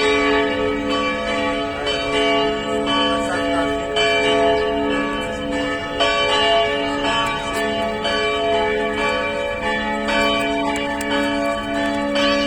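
Church bells ringing to call people in to prayer: several bells struck about once a second, their ringing tones overlapping.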